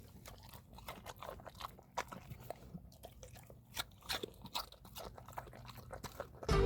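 A dog chewing a crunchy treat: quiet, irregular crunches and bites.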